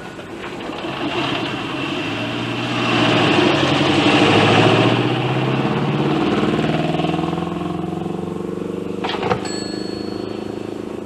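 A car engine running: it grows louder to a peak in the middle, then its pitch falls and it settles into lower, steadier running, as a car pulling up and slowing. A sharp click comes about nine seconds in.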